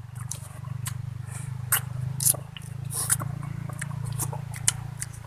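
Close-up eating: wet chewing and lip smacks with many short, sharp crunchy clicks, over a steady low hum.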